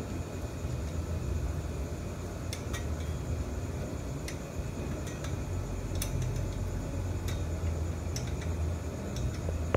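Small metal clicks and taps from a bolt and bracket being worked by hand on a motorcycle's aluminium footpeg hanger, about half a dozen scattered through, over a steady low hum.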